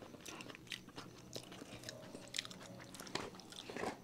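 Close-up chewing and mouth sounds of someone eating momos: irregular small clicks and smacks, a little louder near the end.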